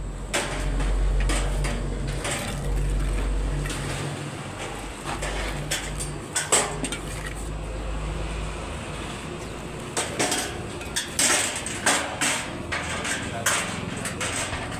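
Irregular metal clanks and knocks, most frequent in the second half, over a low steady machine hum that fades out about halfway through.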